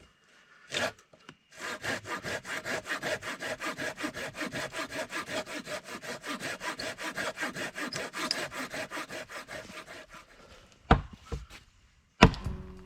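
Hand saw cutting through timber in fast, even back-and-forth strokes for about eight seconds, tailing off as the cut finishes. A single knock follows, and another sharp knock comes near the end.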